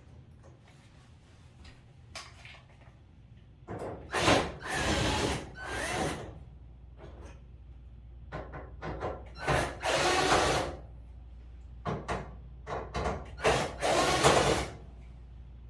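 Power drill running in several short bursts, the longest about a second, with lighter clicks and knocks between.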